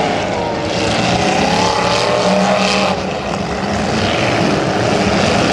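Several demolition derby cars' engines running and revving together in a loud, steady din, their pitch wavering up and down.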